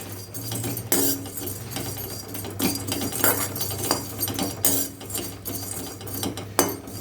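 A spatula stirring dry long pepper in a hot kadai: irregular scrapes and clicks of the spatula against the pan, with the spices rattling, over a steady low hum.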